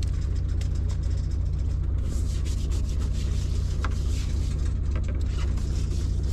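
Fishing boat's engine running steadily, a low even hum, with a hiss and scattered light ticks above it.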